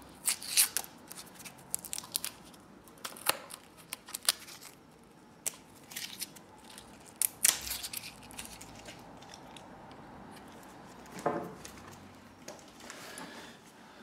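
Masking-tape labels being peeled and pulled off electrical cable cores: irregular sharp crackles and short rips, clustered in the first eight seconds or so, with another rip about eleven seconds in.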